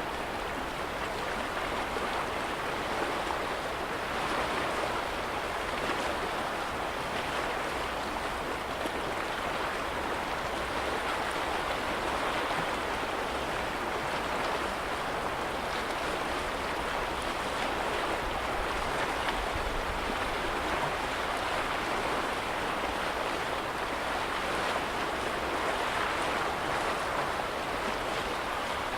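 Small waves on a lake, a steady wash of water that rises and falls gently every several seconds.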